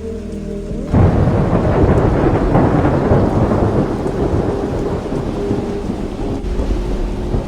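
Thunder breaks suddenly about a second in and rumbles on loudly, over the steady hiss of rain in a thunderstorm.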